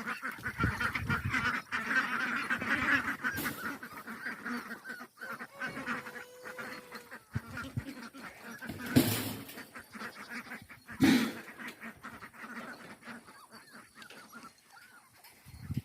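A flock of ducks quacking and chattering, busiest in the first few seconds and quieter after. Two loud knocks come about nine and eleven seconds in.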